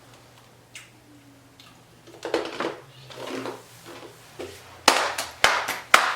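Several sharp hand claps in quick succession near the end, fitting a hand-clapping game. Before them, faint indistinct voice sounds over a low steady hum.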